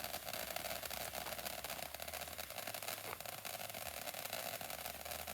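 Steady background hiss with a low hum that comes and goes, and no distinct event.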